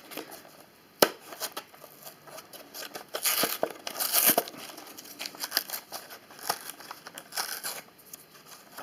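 Cardboard and clear plastic blister packaging being pried apart and torn by hand to free a model, with crinkling, rustling and scattered clicks, a sharp click about a second in.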